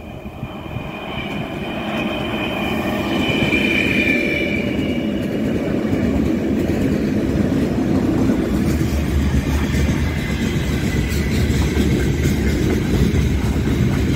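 A 4ES5K "Ermak" electric locomotive hauling a freight train draws near and passes, getting louder over the first few seconds. A high whine peaks as it comes close. Then comes the steady rumble of the loaded open freight wagons rolling past.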